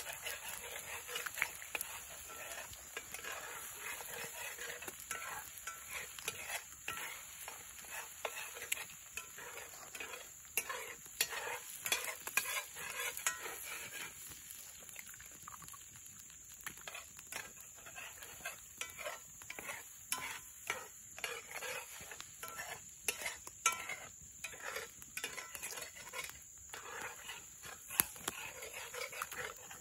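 Scrambled eggs sizzling in a skillet over a campfire while a spatula stirs them, with many short, irregular scrapes of the utensil against the pan.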